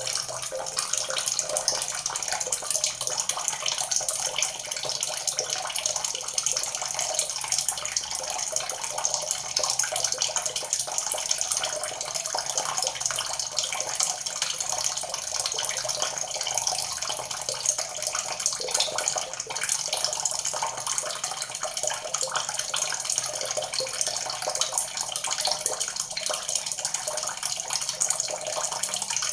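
Water pouring steadily from a shower spout and splashing: an even hiss with a fine spattering texture that holds constant throughout.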